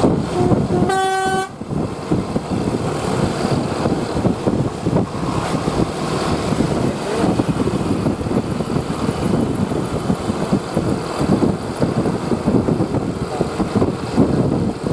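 A bus's Basuri telolet horn sounds twice near the start: a brief toot, then a longer blast of about half a second at the same pitch. Steady heavy engine and road noise from the bus follows.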